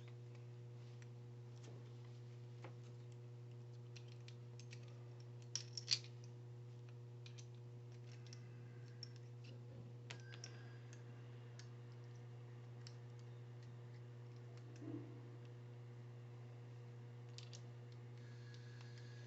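Light scattered clicks and taps over a steady low hum, with a few sharper ticks about six seconds in and another small knock near fifteen seconds.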